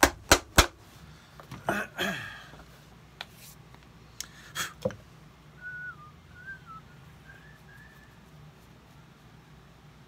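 Shoe repair hammer driving ring shank nails into a dress shoe's leather heel base: three sharp strikes within the first second, then a few lighter knocks over the next few seconds. Soft whistling of a few wavering notes follows.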